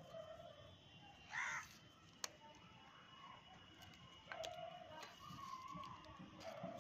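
A crow caws once, harsh and loud, about a second and a half in. Faint shorter calls and one sharp click come over quiet background rustle.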